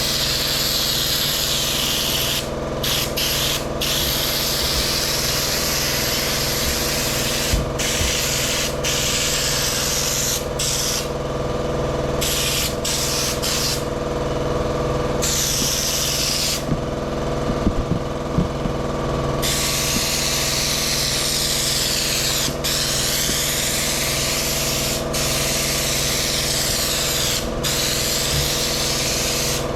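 Air spray gun hissing as Raptor bedliner is sprayed. The hiss cuts off briefly many times as the trigger is let go, with longer pauses around the middle, over a steady mechanical hum.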